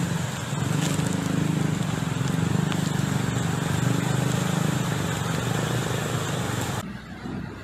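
Cars driving through a flooded street: a vehicle engine runs steadily under a constant hiss of moving water. The sound cuts off abruptly near the end.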